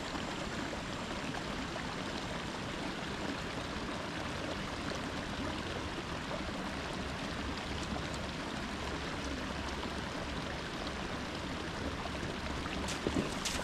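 Steady rush of flowing water, even and unbroken, with a couple of sharp clicks near the end.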